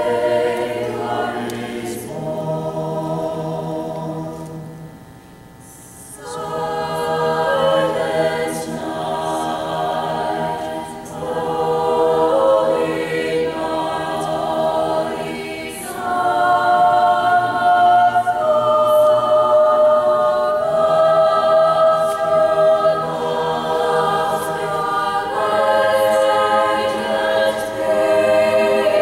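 Mixed-voice choir singing a cappella in sustained chords, with a short pause about five seconds in and louder singing from about halfway on.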